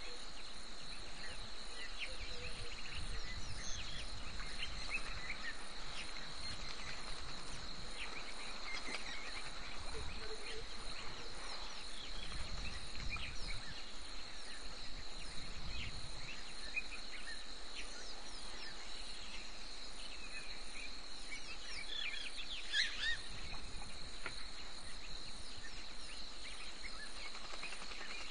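Bush ambience: insects drone steadily at one high pitch, with scattered short chirps and a low rumbling noise that comes and goes.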